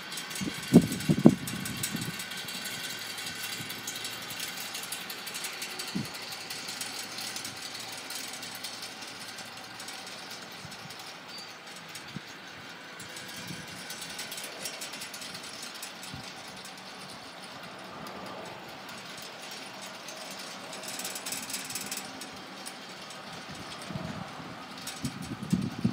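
Wind blowing steadily over the microphone, with short gusts buffeting it about a second in and again near the end.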